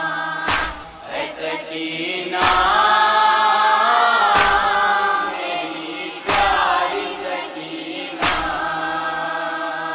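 Noha lament: a chorus of voices chanting long held notes in unison, with a heavy beat about every two seconds, five in all.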